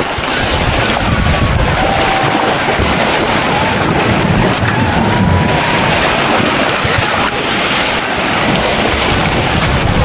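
River ice break-up: churning floodwater carrying ice floes and debris against the bank, a steady loud rush with heavy wind noise on the microphone.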